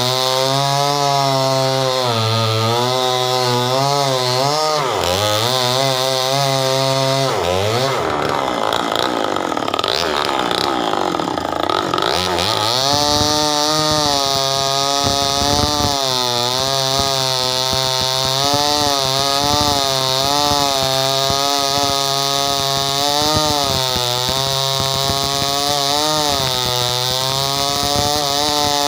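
Stihl 070 two-stroke chainsaw cutting into a mango log, its engine pitch dipping and recovering as the chain loads in the cut. From about a quarter to under half way in, the engine sound turns rough and uneven before settling back into the steady cutting note.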